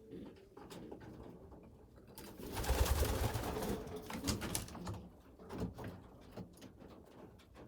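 Racing pigeons cooing, with a few short clicks. A louder burst of noise starts about two seconds in and lasts about two and a half seconds.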